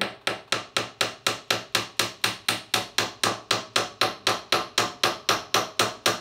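Hammer tapping steadily and quickly, about four blows a second, at the joint where the rocking chair's wooden arm post meets the seat, knocking a temporary piece in to hold the arm in place.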